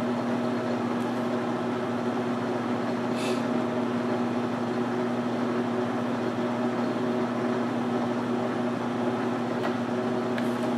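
Precision Matthews 12x36 metal lathe running steadily at 90 RPM, its motor and gear drive humming with several steady tones. The parting tool is under power feed at 1 thou per revolution into a 3-inch 8620 steel bar.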